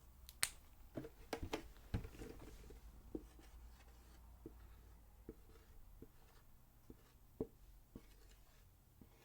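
Soft, irregular finger taps and clicks on a small object being handled, a few of them sharper, in a quiet room.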